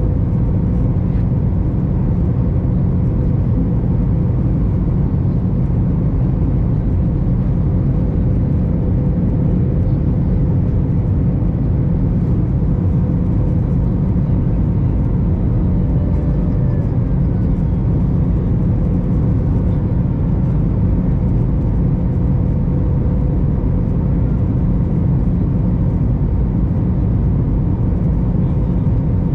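Steady cabin noise inside an Airbus A321 airliner: a deep, even rumble with a faint steady hum above it.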